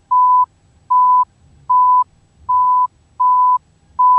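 An electronic beep tone sounds in a steady series of short, identical high beeps, about six of them, each lasting about a third of a second and coming roughly every 0.8 s.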